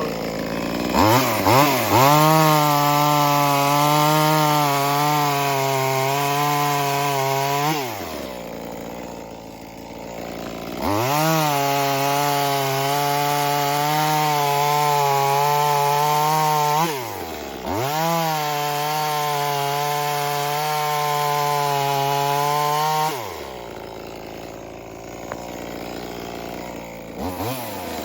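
Brand-new, not yet broken-in Echo 2511-clone two-stroke chainsaw running at full throttle and cutting oak in three long spells, its pitch wavering under load. Between the spells it drops back to idle, and it revs up again near the end.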